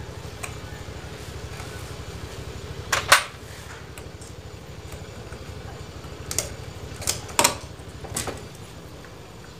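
Sharp metal knocks and clinks as a motorcycle's stiff cylinder block is worked loose and slid off its studs. The loudest knock comes about three seconds in and several lighter ones follow later, over a steady low hum.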